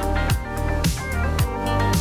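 Background music: a guitar-led track with a steady drum beat, about two beats a second.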